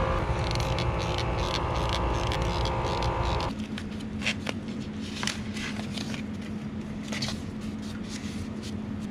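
A steady many-toned drone for about the first three and a half seconds, then a low steady hum with small clicks and scrapes of hands handling a cap and fitting at a refrigerant line service port.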